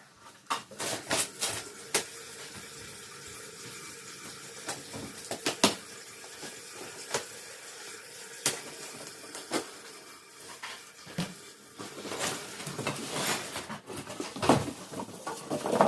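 Irregular clicks, taps and light knocks of desk parts and packaging being handled, with a denser stretch of rustling and clatter near the end, over a steady low hiss.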